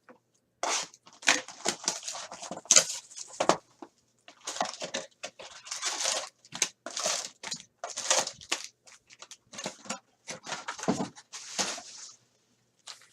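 Plastic wrap crinkling and tearing in quick rustles and rips as a sealed box of trading cards is unwrapped.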